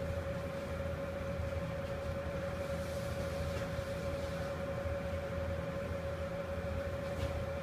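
Steady hum of kitchen machinery: one constant mid-pitched tone over a low rumble. A knife slicing seared beef on a plastic cutting board can be faintly heard near the end.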